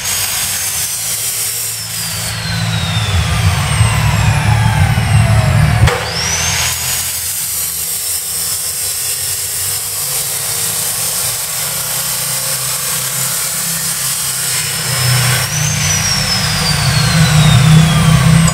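A high whine climbs quickly and then winds down slowly in pitch over several seconds, three times over, above a rumble. It sounds like something spinning up to speed and then coasting down.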